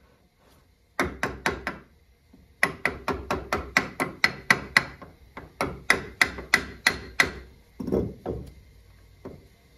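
Small sledgehammer striking the cast-iron body of a Columbian bench vise, with a metallic ring. A quick group of about five blows comes first, then a long run of about twenty at roughly four a second to knock the seized swivel section loose. Two duller knocks follow near the end as the hammer is set down on the wooden bench.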